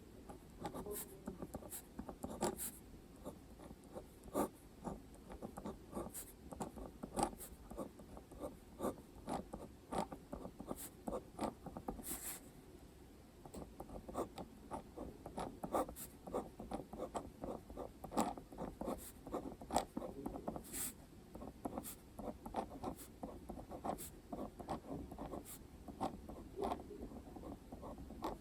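Handwriting on paper: a steady run of short scratching pen strokes, with a brief pause about halfway through.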